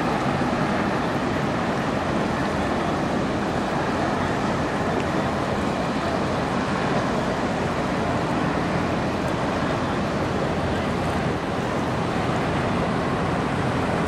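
Steady rush of water from the passing laker Mesabi Miner: its hull wash foaming along the waterline and water pouring from the two discharge ports in its side. A low steady drone from the ship runs beneath, with wind buffeting the microphone.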